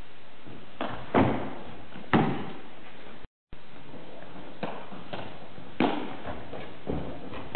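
Footbag net rally: a handful of sharp thuds of kicks and footsteps on the wooden floor, echoing in a large hall, over a steady hiss. The sound cuts out completely for a moment about three seconds in.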